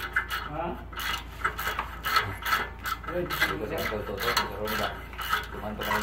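Hand ratchet wrench being worked on a bolt in a car's wheel well, giving rasping ratchet clicks in short repeated strokes, about two a second.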